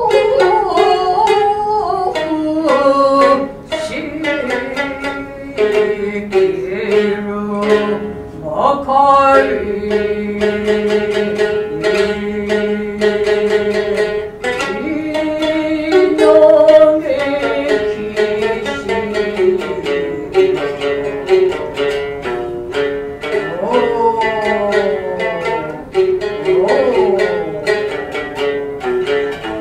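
Gidayū-bushi jōruri music: a tayū chanting in long held and sliding notes over the sharp, frequent plucks of a futozao shamisen.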